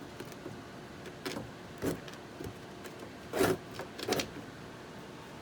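Scissor point being pushed and twisted to poke a small hole for a wire, heard as a few short scraping, rubbing bursts, the loudest about three and a half seconds in.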